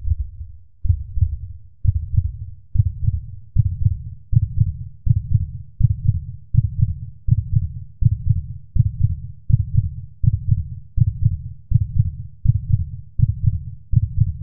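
A deep double thump repeating a little under once a second, like a heartbeat, quickening slightly toward the end: a heartbeat sound effect.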